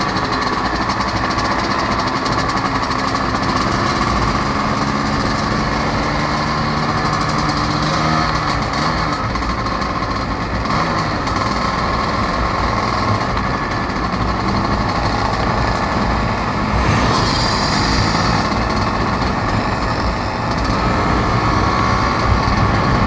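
Vespa scooter's small engine running at road speed, heard from the scooter itself, with steady wind and road noise; the engine note changes about eight seconds in.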